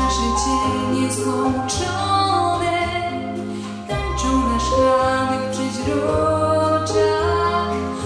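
A young woman singing a song in Polish into a handheld microphone over an instrumental backing track with steady bass notes.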